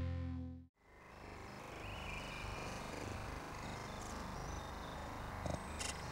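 A sustained, distorted electric-guitar drone cuts off abruptly under a second in. A steady ambient noise haze with small scattered sounds then fades in.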